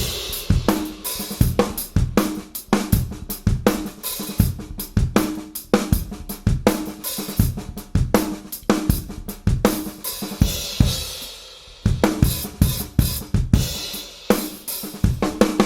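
Drum kit playing a steady groove of kick, snare and hi-hat with cymbal wash, recorded through a Yamaha EAD10 with triggered snare and toms on its "Breakbeats" preset. The playing drops out briefly about twelve seconds in, then picks up again.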